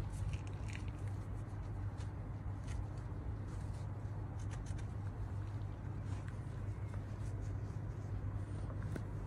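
A microfibre cloth rubbing and rustling over a car's alloy wheel rim in soft, scratchy wipes, as the rim is buffed dry after a waterless wash spray. A steady low hum runs underneath.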